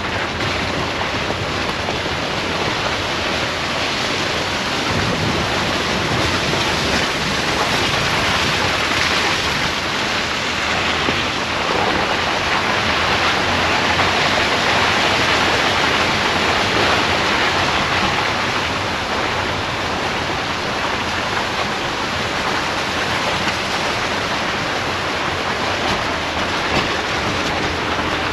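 Steady rushing noise of a Tesla Model Y driving along a wet, muddy dirt road: wind over the microphone mixed with tyre noise.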